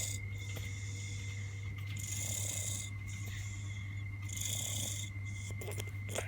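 Snoring through a nose blocked by a cold, a hissing breath about every two seconds.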